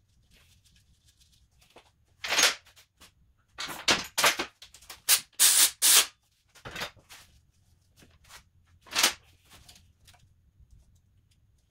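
A run of short, sharp rasping noises, about nine in all, bunched in the first half with one more near the end, from gloved hands working on parts at the cylinder head.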